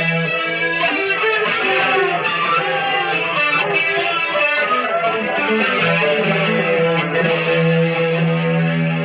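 Fender electric guitar with a reverse headstock played through an effects unit: a low note held under a changing line of higher sustained notes.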